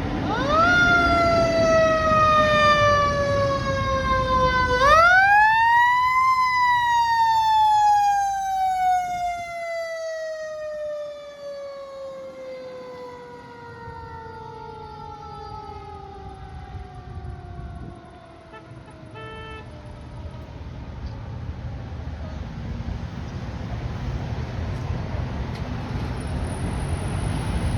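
Fire truck's mechanical siren winding up to a wail, sagging, then winding up again to a higher pitch. It then coasts down, its pitch falling slowly over about twelve seconds until it fades.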